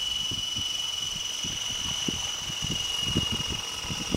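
Gaui Hurricane 550 electric RC helicopter in flight: a steady high-pitched whine from its brushless motor and drivetrain, holding nearly level, with irregular low thumps and buffeting beneath it.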